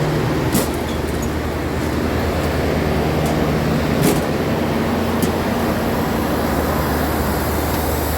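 Rooftop air-conditioning equipment running: a steady fan and compressor drone with a constant low hum, and a few light clicks.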